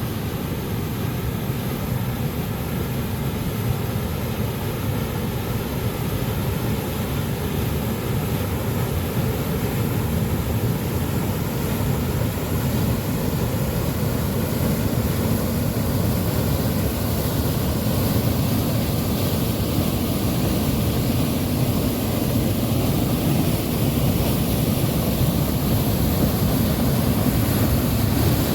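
Waterfall rushing steadily, a continuous heavy sound of falling water that gets gradually louder.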